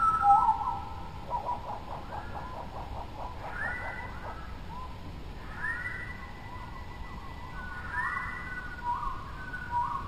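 Clear whistled notes in repeated phrases, each rising quickly and then held. A fast, rippling trill comes in about a second and a half in. The pitch is far higher than a pigeon's coo.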